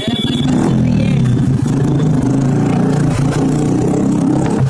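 Motorcycle with a blue-head exhaust running loud while being ridden at low speed, a steady, deep engine note whose pitch wavers slightly, dipping briefly near the end.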